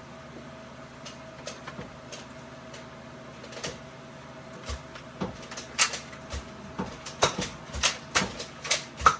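A series of sharp clicks and knocks, sparse at first and coming about two or three a second in the second half, over a steady faint hum.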